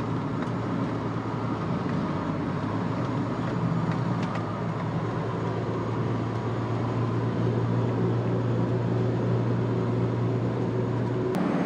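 Suzuki Every Wagon kei van on the move: its 660 cc three-cylinder engine gives a steady low hum over tyre and road noise. The sound changes suddenly near the end.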